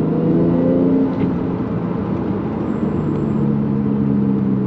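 Turbocharged 1JZ-GTE inline-six of a Toyota Chaser Tourer V, heard from inside the car while driving. It pulls with a rising note for about a second, then eases off into engine and road rumble, and settles into a steady drone near the end.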